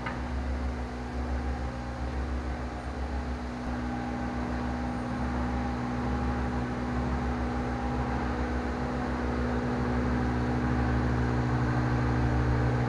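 A steady machine hum: a constant low drone carrying several steady tones, growing slightly louder as it goes.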